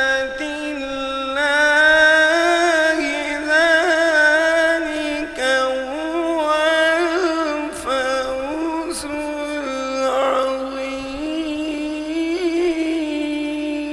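Male qari reciting the Quran in the melodic tajweed style, holding long notes and turning them with wavering melismatic ornaments.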